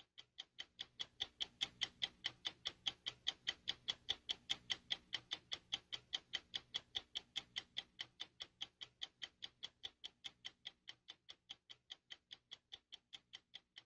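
Steady, even ticking, about four ticks a second, growing fainter over the second half, over a faint low drone.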